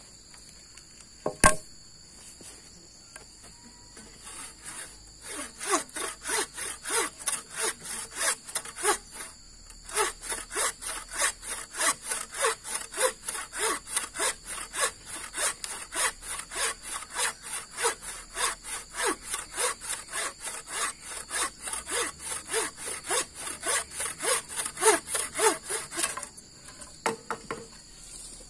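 Hand saw cutting with steady back-and-forth strokes, about three a second, with a short pause about nine seconds in. One sharp knock comes just before the sawing, and a steady insect chorus runs underneath.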